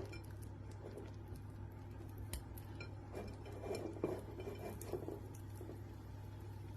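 Cooked potato pieces going into a frying pan of melted butter, with a few light clinks and soft knocks of a utensil against the pan over a low steady hum.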